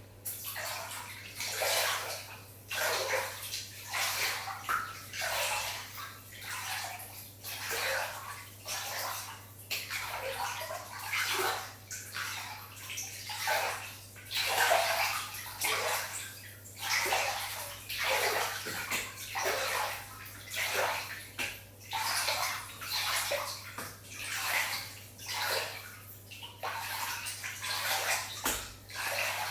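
Water splashing and sloshing in irregular surges, about one or two a second, over a steady low hum.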